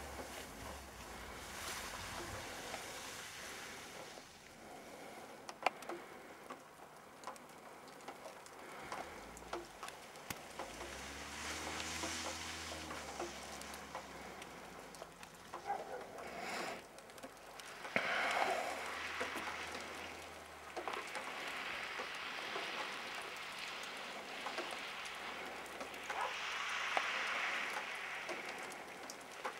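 An SUV's engine heard from a distance, revving up and easing off several times as it slides through snow, under a steady hiss.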